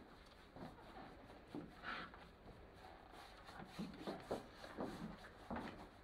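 Faint, irregular soft dabs and rubbing of a damp sponge worked over a wet matte-medium glaze on a painted board.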